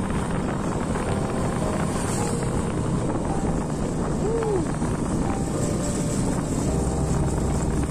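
Motorcycle riding along, its engine running steadily under wind buffeting the microphone.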